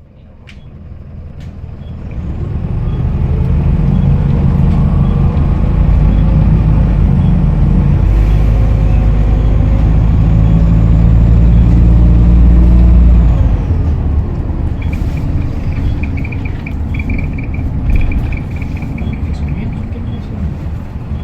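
Optare Solo SR single-deck bus running with its turbocharger whistling. The sound swells over the first few seconds and stays loud, with the high whistle holding before falling away about two-thirds of the way through.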